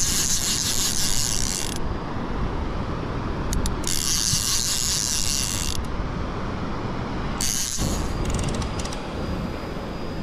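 Shimano TLD 25 lever-drag overhead reel being cranked in three spells, the first two about two seconds each and the last brief, its gears whirring while a hooked tuna is pumped and wound in. A steady low rumble runs underneath.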